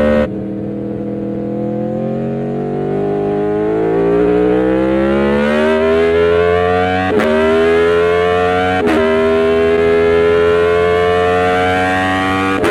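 Aprilia Tuono V4 1100's V4 engine under acceleration: the revs drop as the throttle closes right at the start, then climb steadily for about seven seconds. Two quick upshifts follow, each a brief cut with the pitch dropping, the revs climbing again after each.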